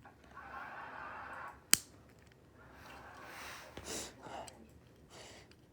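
Handling noises from plastic toy building pieces, with one sharp snap or click a little under two seconds in, the loudest sound, and shorter rustles after it.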